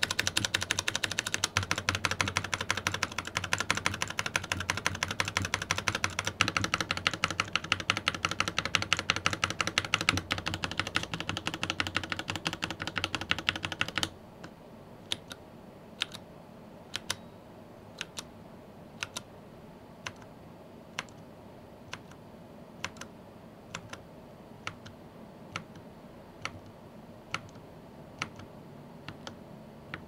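A key on a mechanical keyboard pressed over and over: a fast run of clacks for about the first half, then an abrupt change to slower, quieter single presses about once a second.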